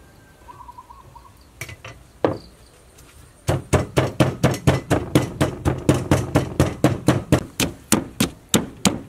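Wooden pestle pounding galangal in a mortar: two separate thuds, then a steady run of about four blows a second starting about a third of the way in.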